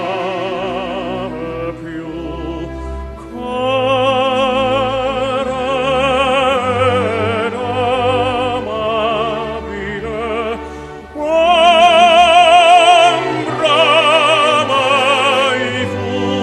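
Operatic solo singing with wide vibrato in long held phrases over quiet instrumental accompaniment, swelling loudest just past the middle. It is background music laid over the pictures.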